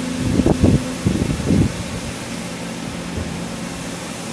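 Youji YV 1600 vertical turret lathe running with a steady machine hum, with a few loud mechanical clunks and rumbles in the first two seconds as the ram with its live milling head moves.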